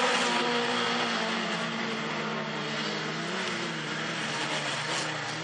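Engines of several standard-class autocross cars running at race speed: a steady drone with overlapping engine notes whose pitch wanders slightly up and down.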